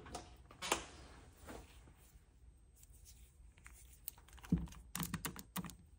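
Light clicks and taps of hands handling small plastic nail supplies on a tabletop: a couple of faint clicks in the first two seconds, then a quick run of sharp clicks in the last second and a half.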